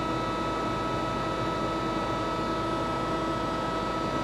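Steady hum of an idling EmcoTurn 360 CNC lathe, with several steady whining tones over a hiss and no change in level.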